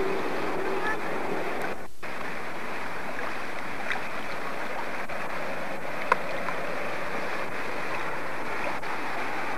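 River water rushing over rocks: a steady rush recorded through an old camcorder's microphone. The sound drops out for a moment about two seconds in, and a single sharp click comes a little after six seconds.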